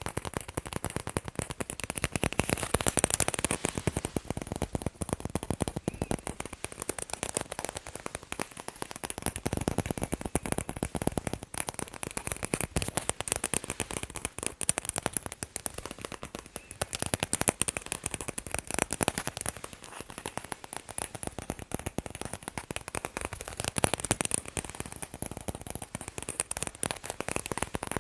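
Fast, continuous tapping on sports balls: a dense stream of quick sharp taps with no pauses.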